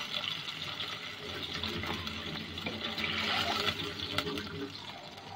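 Water and hot oil with fried onions and spices sizzling and bubbling in a pot as a spatula stirs it, with a few clicks of the spatula against the pot.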